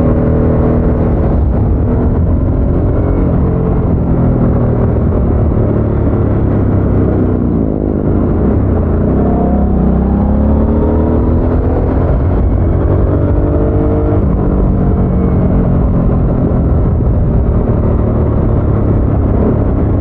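Harley-Davidson Sportster S's Revolution Max 1250 V-twin running through its stock exhaust while riding. The engine note falls about eight seconds in, then rises steadily under acceleration for several seconds and drops off sharply about fourteen seconds in.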